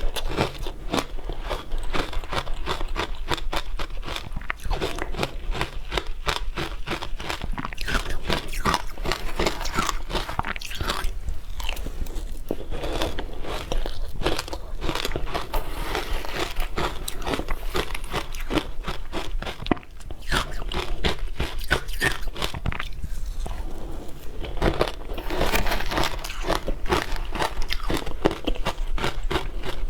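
Close-miked crunching and chewing of frozen matcha ice: a dense, continuous run of crisp crunches and crackles, with a brief lull about two-thirds of the way through.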